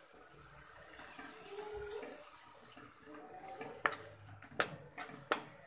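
Wet green chilli and tomato paste going into a pan of hot oil with a hiss, followed by three sharp knocks of a spoon near the end.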